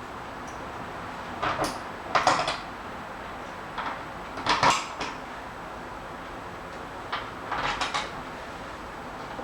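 Four short scraping and clicking noises of hand work, from screws being handled and driven with a hand Phillips screwdriver into a French door's window frame.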